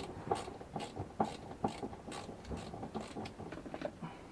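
Hand wrench tightening a greased front-seat mounting bolt into the floor rail: a regular run of short metallic clicks, about two or three a second.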